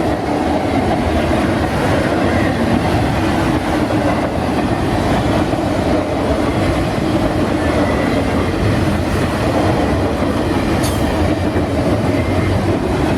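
A CSX autorack freight train's cars rolling steadily past, a continuous rumble of steel wheels on rail with clickety-clack. There is one brief sharp click about eleven seconds in.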